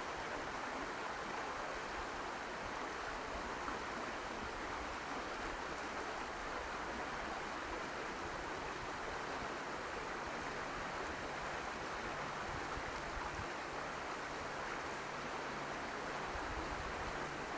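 Steady hiss of rain falling. A faint low hum joins about halfway through.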